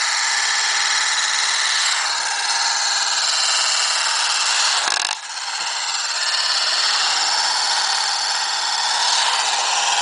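Tornado spheres, two welded steel ball bearings, spinning at high speed on a glass mirror with a steady high-pitched whirring whine, kept up by blowing through a straw. The whine dips briefly with a click about five seconds in, then carries on.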